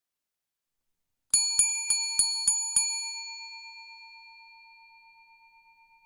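Chrome desk service bell struck six times in quick succession starting about a second in, then ringing on and slowly fading with a slight pulsing.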